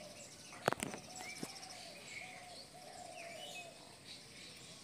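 A few light clicks about a second in as cake slices are shifted on a ceramic plate, then faint bird chirps in the background.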